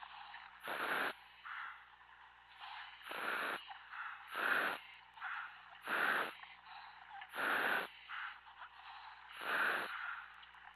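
A commercial diver breathing hard in a surface-supplied helmet, heard over the dive radio: a hissing breath about every second and a half, with softer breaths in between.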